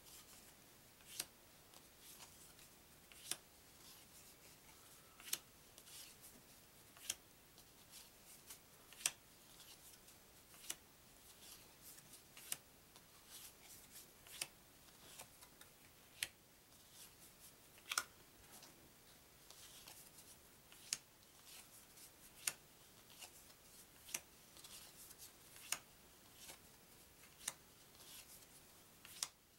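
Trivia cards being flicked off a deck one at a time, a sharp card snap roughly every two seconds with quiet sliding and rustling between.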